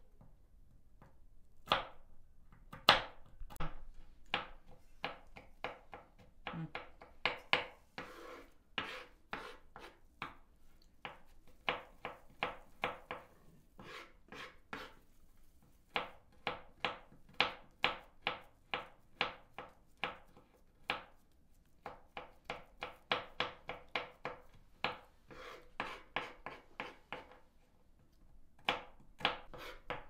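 Kitchen knife chopping walnuts on a wooden cutting board: runs of sharp knocks, a few a second, broken by short pauses.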